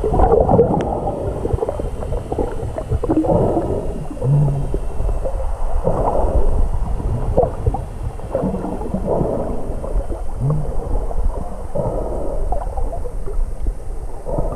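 Muffled water noise picked up by an action camera held underwater, with a steady low rumble and dull swells of sound recurring about every three seconds.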